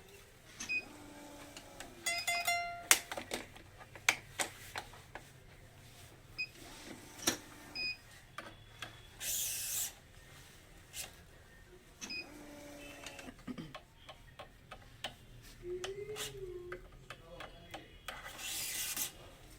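Work at a badminton racket-stringing bench: irregular clicks and taps from clamps and tools, short metallic pings, and twice a brief hissing rush, about nine seconds in and again near the end, like string being drawn through the frame.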